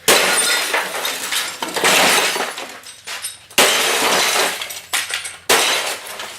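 Glass of a CRT television shattering under repeated blows: about four sharp smashes, roughly two seconds apart, each followed by crackling and tinkling of breaking glass.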